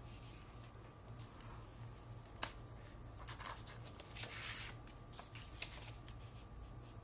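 Sheets of construction paper rustling and sliding as a paper strip is pushed into place and pressed flat by hand, with a few light taps and a brief louder swish about four seconds in. A faint low hum runs underneath.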